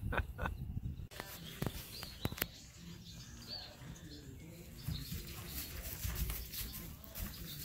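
Faint bird chirps and a few sharp clicks over a low rumble.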